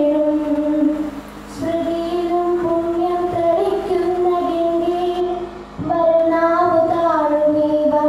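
A girl singing a slow song solo into a microphone, holding long notes that glide gently up and down, with a short breath pause a little over a second in and another just before six seconds.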